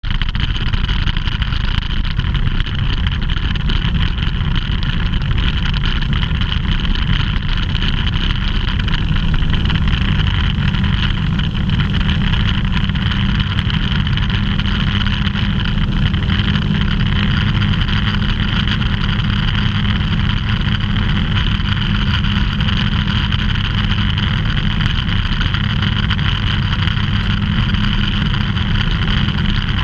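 Ultralight aircraft's engine and propeller running steadily at high power through takeoff and climb-out, heard loud from inside the cockpit.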